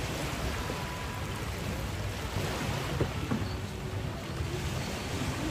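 Beach ambience: steady wash of surf with wind buffeting the microphone.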